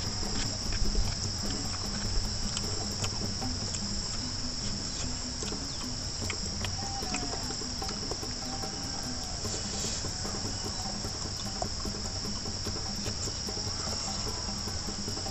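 Steady high-pitched insect chorus, crickets or cicadas, with scattered small clicks and mouth sounds of someone eating by hand close to the microphone.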